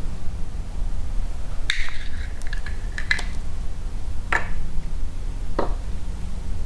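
Needle-nose pliers clicking and scraping against a plastic key fob case while prying the circuit board out: a quick cluster of small clicks about two seconds in, then single clicks twice more, over a steady low hum.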